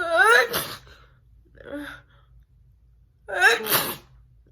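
A woman sneezing twice, about three seconds apart: each sneeze is a voiced 'ah' that slides up in pitch and then breaks into a sharp, noisy burst.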